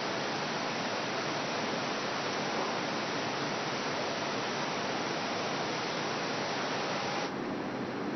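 Steady rushing hiss of moving air in a car-body paint-curing booth, with a faint steady tone in it. About seven seconds in it abruptly turns duller and a little quieter.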